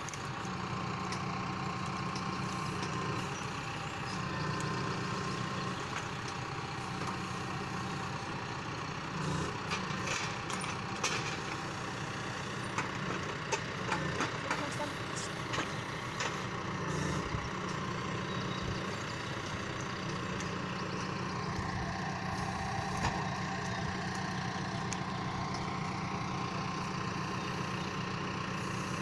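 John Deere 6115 M tractor's diesel engine running steadily while it drives a hydraulic timber-loader crane, with a steady whine over it. Sharp knocks of logs being gripped and set down on the trailer come mostly between about 9 and 17 seconds in.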